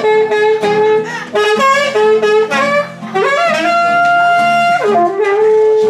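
Alto saxophone playing a melody with slides between notes and a long held note about halfway through, over nylon-string classical guitar accompaniment.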